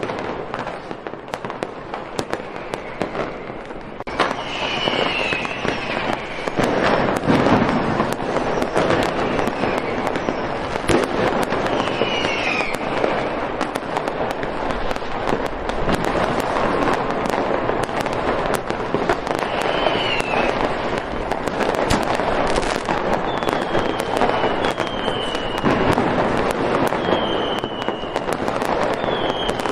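Fireworks display: continuous crackling and popping with many sharp bangs, growing denser about four seconds in, and several short high whistles that fall in pitch.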